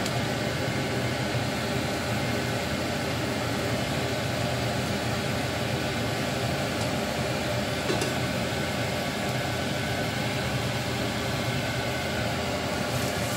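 Steady fan whir with a low hum running unchanged, with one light click about eight seconds in.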